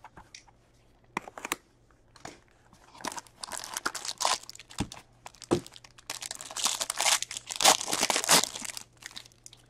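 Upper Deck Black Diamond hockey card box being opened and its pack wrapper torn open: a few light taps of cardboard, then a long run of crinkling and tearing from about three seconds in.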